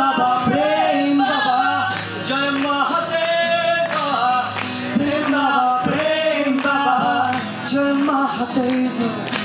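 A male singer holding long, gliding notes into a microphone over a strummed acoustic guitar.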